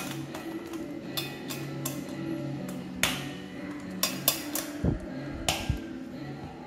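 Background music with a steady bed of low notes, over a handful of sharp metal clicks and clinks from a stainless steel tiered lunch box as its lids are pressed down and its side latch clipped shut. The loudest clicks come about three to four seconds in.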